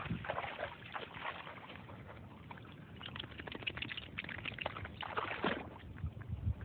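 Water splashing and sloshing as a dog swims, in uneven spells with a quieter stretch of a second or so in the middle.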